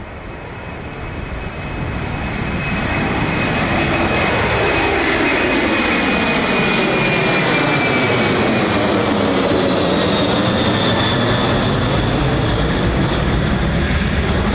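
Boeing 747-400 freighter's four jet engines at climb power as the plane passes low overhead just after takeoff. The roar builds over the first few seconds and then stays loud, with a high engine whine that slides slightly down in pitch as it goes over and away.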